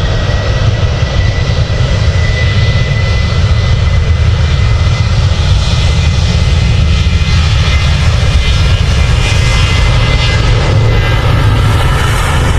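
A small electric motor running steadily, a high whine over a loud rushing noise.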